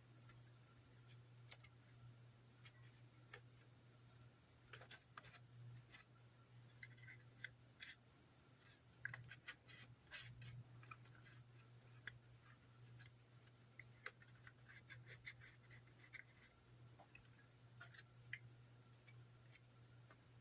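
Faint, irregular clicks and scrapes of small plastic model parts and tape being handled and fitted together, over a steady low hum.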